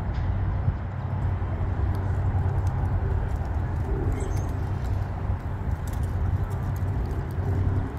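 Steady low rumble of a tugboat's diesel engines pushing loaded barges upriver.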